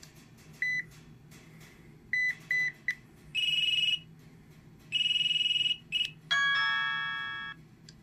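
LG Env Touch ringtone previews through the phone's speaker: a single short beep, then three short beeps, then a louder, longer beep, then two more loud beeps. About six seconds in comes a doorbell chime of several tones that fades away.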